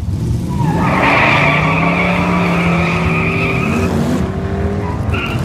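NASCAR-style stock car revving and spinning its tyres on tarmac: the engine rises and then holds under a steady high tyre squeal that lasts about three seconds, and a short squeal follows near the end.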